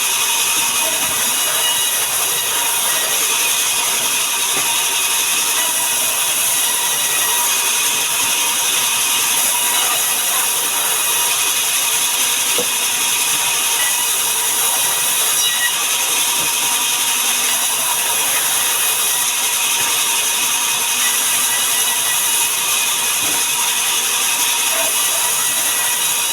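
Sawmill machinery running continuously: a steady, loud mechanical noise, mostly high-pitched, with several steady whining tones and no breaks.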